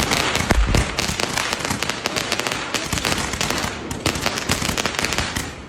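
Fireworks going off in a dense, continuous run of rapid cracks and pops, with a deep thump a little over half a second in.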